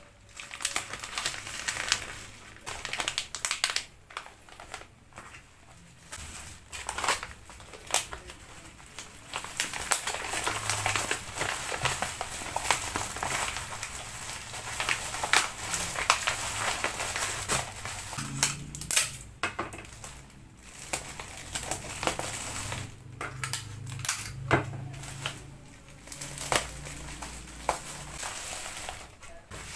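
Plastic bubble wrap and a bubble mailer crinkling and rustling as they are handled and folded around a small parcel, with many sharp little crackles and brief pauses.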